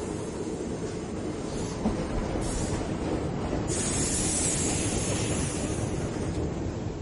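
Métro train running on the rails, a steady rushing noise, with a brighter hiss joining about four seconds in.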